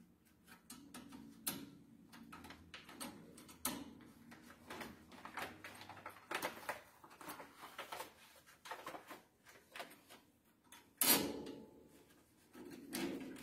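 Paper crackling and rustling as the cover paper is pressed and smoothed onto the heating plate of a PVC-window welding machine, with irregular handling clicks against the machine's metal parts. One sharper knock stands out about eleven seconds in.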